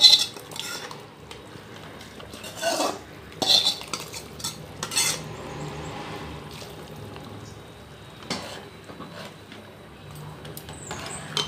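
Metal utensils working a kadhai and a large metal cooking pot: fried masala paste is scraped out of the kadhai into the pot, then a steel ladle stirs the stew. There are several sharp clinks of metal on metal along the way.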